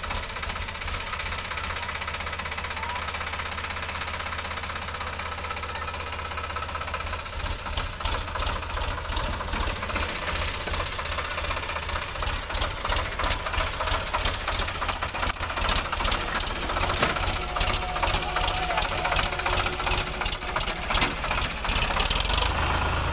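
Sonalika DI-35 RX Sikander tractor's diesel engine running. From about halfway through it gets louder, with a fast knocking clatter, and ends close by.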